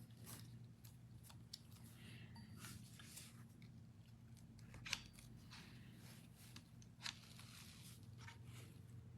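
Near silence: faint clicks and rustles of items being handled, over a low steady hum, with two sharper clicks about five and seven seconds in.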